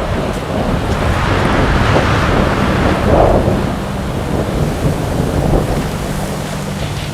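Wind buffeting the microphone, a steady low rushing noise.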